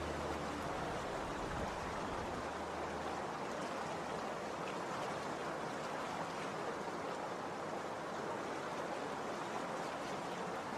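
KC16 walk-behind concrete cutting saw running, a steady broad hiss with a low engine hum that fades about three seconds in.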